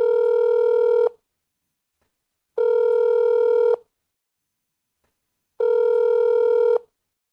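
Outgoing call ringing tone of a video call: three long, steady beeps of one pitch, each about a second long, with silent pauses between, as the call rings out unanswered.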